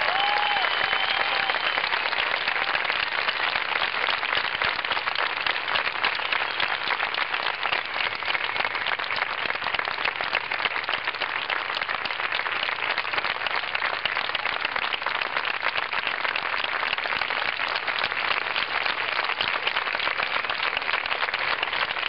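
Large crowd applauding steadily and at length, the close and distant claps merging into one even wash.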